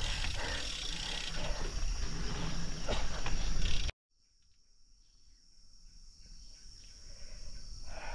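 Insects droning in one steady high tone, with wind buffeting the action camera's microphone for the first four seconds. Then a sudden cut to a quieter stretch where the insect drone goes on over a faint rising hiss.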